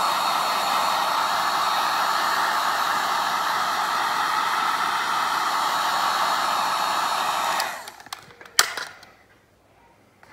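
Electric heat gun blowing hot air steadily while shrinking iron-on plastic covering. It is switched off about three-quarters of the way through, and a second later there is a single sharp knock.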